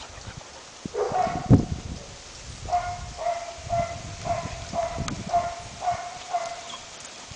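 A puppy barking in play: one rising yelp about a second in, then a run of about eight short, even barks, roughly two a second.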